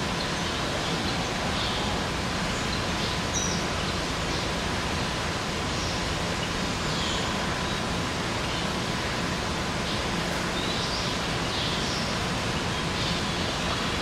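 Steady background hiss with a faint constant hum, and small birds chirping faintly and intermittently over it.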